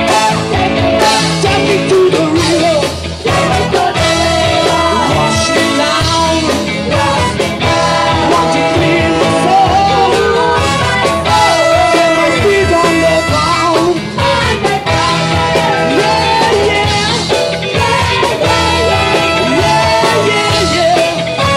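Live soul band playing with a brass section of trumpets, trombone and saxophone, and singing over the music.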